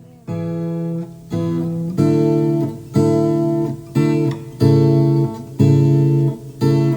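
Background music: strummed acoustic guitar chords, about one a second.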